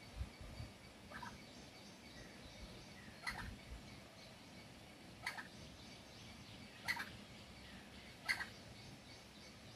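A Sri Lanka junglefowl hen gives five short, faint calls, one every second and a half to two seconds.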